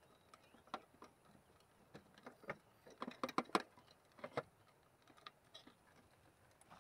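Irregular light clicks and taps on a clear plastic insect box as it is handled with crickets inside, with a quick cluster of them about three seconds in.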